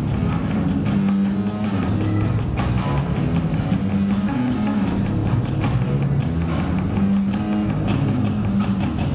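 A band playing rock music, with guitar and drum kit.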